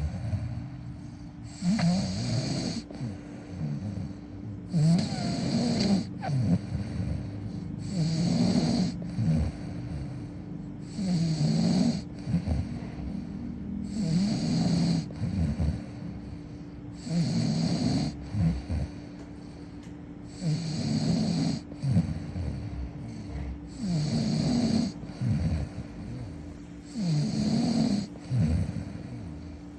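Snoring in sleep: a rough, rattling snore about every three seconds, each with an airy hiss, repeating evenly nine or so times.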